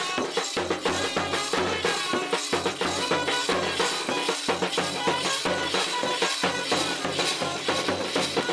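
Village brass band music, with drums and rattling percussion keeping a fast, steady dance beat under the melody.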